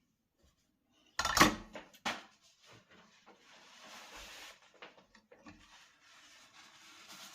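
Kitchenware being handled: a burst of sharp clatters and knocks about a second in, then softer knocks and two stretches of a quiet, steady rushing noise.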